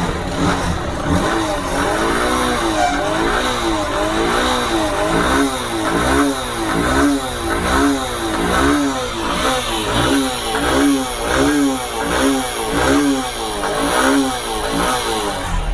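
Honda CB Unicorn 160's single-cylinder four-stroke engine revved in quick repeated throttle blips, the pitch rising and falling over and over. The engine has gone bad: its sound is off and it is smoking enough to fail an emissions check.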